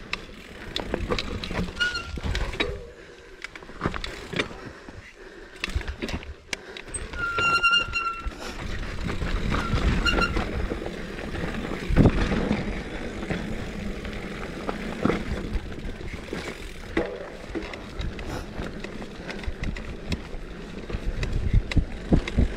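Mountain bike running down a rocky dirt singletrack: tyres crunching over dirt and stones, the bike rattling and knocking over bumps, with a hard knock about 12 seconds in. A few short high squeals from the disc brakes, the longest about 8 seconds in.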